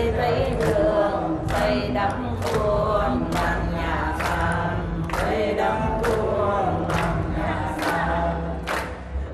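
A woman singing into a microphone, sustained sung lines over a steady beat that falls a little under once a second.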